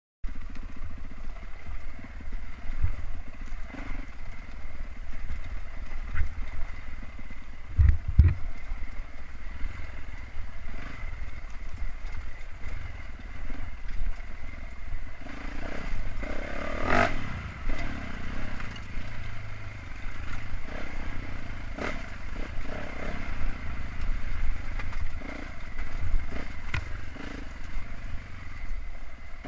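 Dirt bike engine running and pulling on a rocky trail, heard through a helmet-mounted camera, with clatter and knocks from the bike over rocks and brush. A heavy thump comes about eight seconds in and a louder burst of noise about halfway through.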